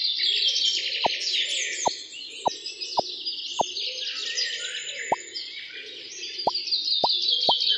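Many birds chirping in a dense, continuous chorus. Over it come about nine short, falling 'bloop' pops at irregular intervals, like cartoon plop sound effects.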